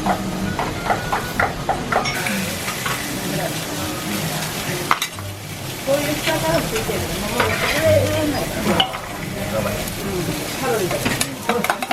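Restaurant kitchen sounds: food sizzling on a hot surface, with utensils and dishes clinking and faint background voices.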